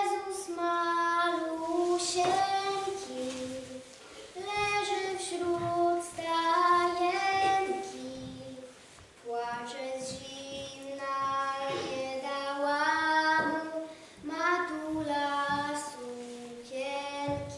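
A young girl singing a solo melody without accompaniment, in phrases of long held notes.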